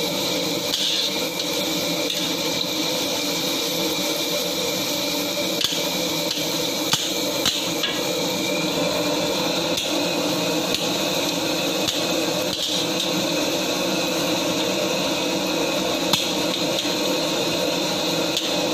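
A metal spatula scraping and stirring shredded vegetables frying in oil in a steel wok, with a few sharp clinks of the spatula against the pan. A steady kitchen drone runs underneath.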